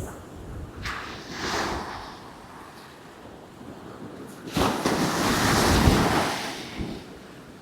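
Heavy surf breaking and rushing up the beach in strong wind, with wind buffeting the microphone. One wave swells about a second in, and a bigger one comes in suddenly about four and a half seconds in, the loudest, lasting about two seconds.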